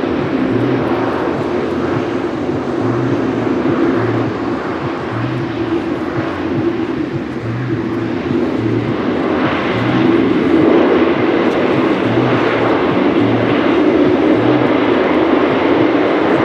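Boeing 747-8's four General Electric GEnx jet engines during the landing rollout, a steady loud jet noise. About ten seconds in it swells and grows brighter as reverse thrust comes on to slow the aircraft.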